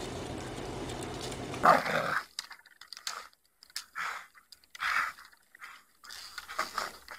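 A dog barking a few times at uneven intervals, the first bark the loudest, after a short stretch of steady low background noise.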